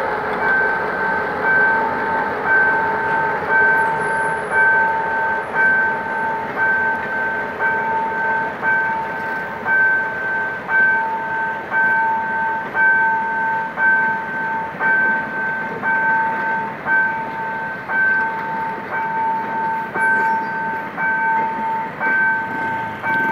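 Level crossing warning bell ringing in an even two-tone pulse, about once a second, as a passenger train's coaches roll past on the track. The diesel locomotive hauling them is heard pulling away at the start.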